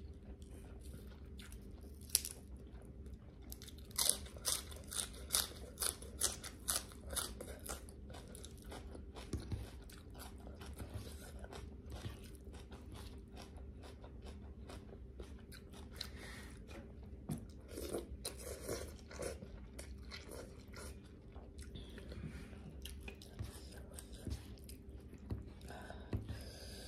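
Close-up eating sounds: crisp pork rinds and lettuce crunched between the teeth, a run of sharp crunches about two a second a few seconds in, then softer chewing with a few scattered crunches.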